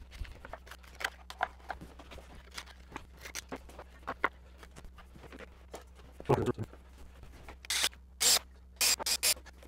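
Wooden jig parts and a wooden blank being handled and set down on a metal saw table, with small knocks and scrapes and one louder knock about two-thirds of the way in. Near the end a cordless drill drives screws into the plywood jig in several short bursts.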